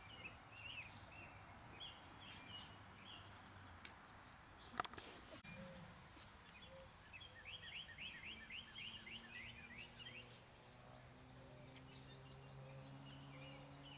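Faint chirping of small wild birds, short calls repeated throughout with a quick run of them in the middle. Two sharp clicks about five seconds in, and a low steady hum in the second half.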